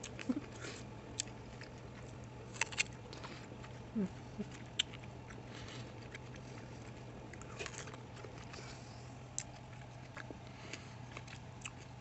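A person biting into and chewing a ripe, juicy peach close to the microphone. Wet mouth clicks and smacks come at irregular moments.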